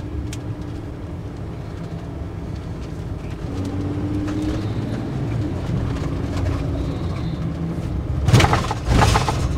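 Camper van driving, heard from inside the cab: a steady engine and road rumble, with a louder rushing burst a little before the end.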